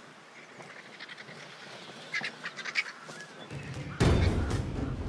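A crowd of griffon vultures squabbling over a carcass, with harsh croaking and hissing calls bunched about two seconds in. Near the end the sound turns suddenly louder and rougher, with a low rumble underneath.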